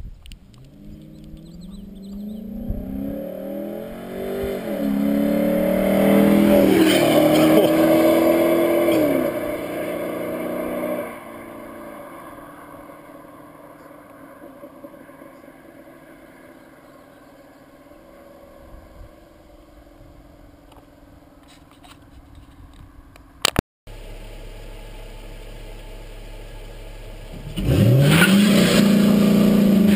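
2007 Dodge Charger R/T's 5.7-litre HEMI V8, breathing through a Mopar cold air intake and Daytona exhaust, accelerating hard past the microphone, rising in pitch through several upshifts, loudest as it goes by, then fading away. Near the end the same engine rises loud again under acceleration, heard from up close at the front wheel.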